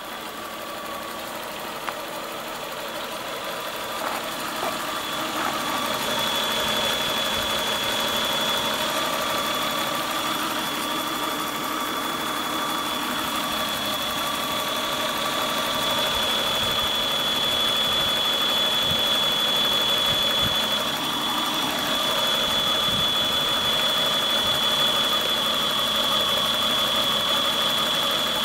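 Toyota Chaser GX90's 1G-FE straight-six idling with a steady high-pitched whistle that grows stronger about six seconds in. The whistle is there at idle even with the throttle body and idle air control valve freshly cleaned; the owner wonders whether the intake manifold is to blame.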